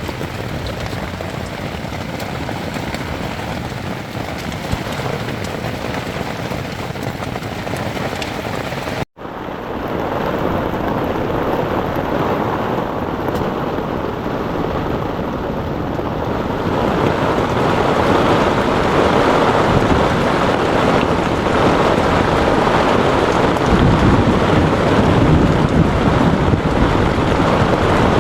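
Heavy rain pouring down in a thunderstorm, a steady wash of noise. It breaks off for an instant about a third of the way in, then comes back and grows louder in the second half.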